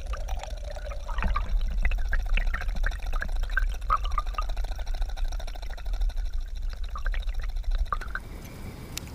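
Water rushing and gurgling around a submerged camera moving through the water with a retrieved weedless chatterbait: a low rumble with scattered bubbly pops, which drops away near the end.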